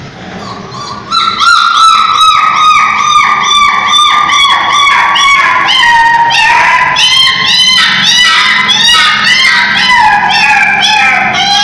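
Puppy crying in rapid, high-pitched yelps, about three or four a second, starting about a second in.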